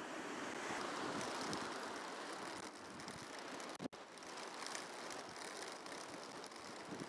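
Surf washing over a pebble beach, mixed with wind noise on the microphone, as a steady rush. It breaks off for an instant about four seconds in and goes on as the same rush of wind and sea.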